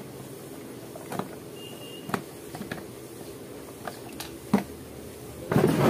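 Hands handling the white plastic case of an AccuNeb compressor nebulizer while getting ready to open it: scattered light clicks and taps on the plastic, then a louder burst of handling noise near the end.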